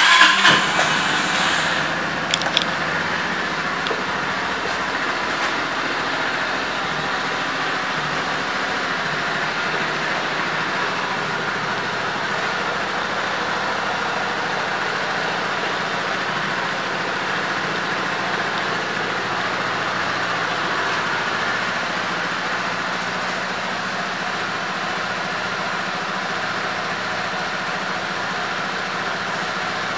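Kymco Xciting 250 Ri scooter's single-cylinder four-stroke engine starting, running a little faster for a second or so, then settling into a steady idle. A couple of short clicks about two and a half seconds in.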